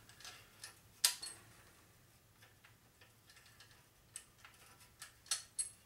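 Sharp metallic clicks and ticks as a cylinder hone is handled in the bore of a Ford four-cylinder engine block. The loudest click comes about a second in, and a few lighter ones follow near the end. The hone's drill is not running.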